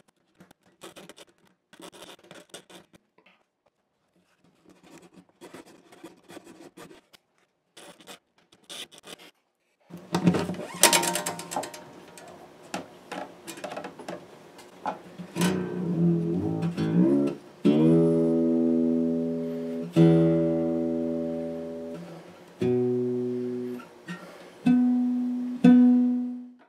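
A few short bouts of scraping on the bone saddle of a Gibson J-50 steel-string acoustic guitar, then the guitar's strings are plucked one at a time. From about halfway, five single notes each ring for a second or two. The strings are being sounded to check their intonation against a tuner after the saddle's focal points were scraped.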